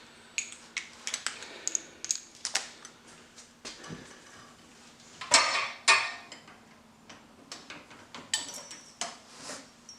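Metal clinks and clicks of a breaker bar, extension and socket being fitted onto a bolt in an engine bay, with a louder clatter of metal about five seconds in.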